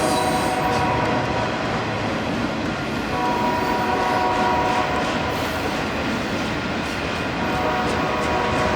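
A freight train running close by, with heavy rumble and wheel clatter on the rails. The locomotive horn sounds steady tones over it, louder midway and again near the end.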